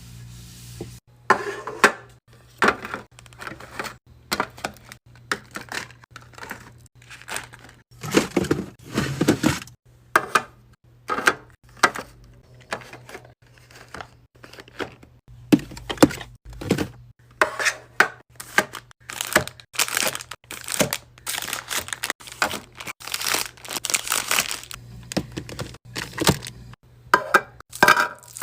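Plastic packaging crinkling and items knocking as they are handled and set down, in many irregular short clatters and rustles, over a steady low hum.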